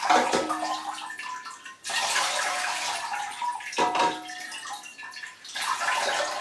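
Water poured from a plastic jug over a potted phalaenopsis orchid, splashing into a bowl of water below, in a few pours with brief breaks between them.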